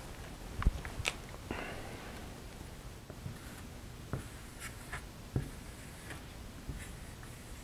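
Marker writing on a whiteboard in short, faint strokes, after a couple of light clicks about a second in as the marker is picked up.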